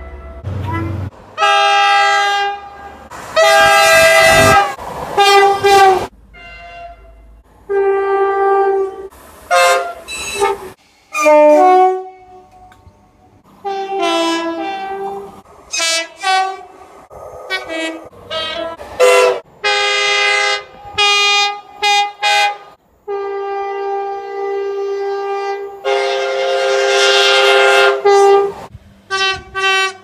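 Train horns sounding a long run of short and long blasts, the pitch changing from blast to blast in the high-low pattern of two-tone horns, with a longer blast near the end.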